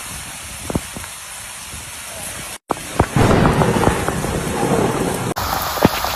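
Heavy rain and rushing floodwater, a steady hiss. It drops out for a moment about two and a half seconds in, comes back louder, and changes again just after five seconds as the footage cuts.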